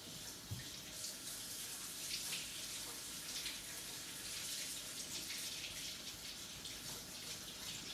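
Tap water running steadily into a sink while hands are rinsed under it.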